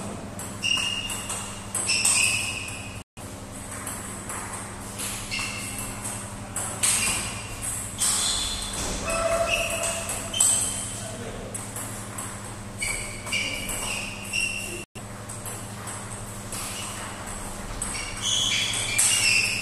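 Table tennis ball being hit back and forth in rallies: sharp pocks and pings of the ball off the rubber paddles and bouncing on the table, in quick irregular runs, over a steady low hum.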